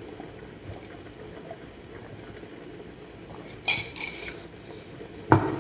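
Crockery clinking: a sharp clink about two-thirds of the way in and a louder knock just before the end, over faint steady room noise.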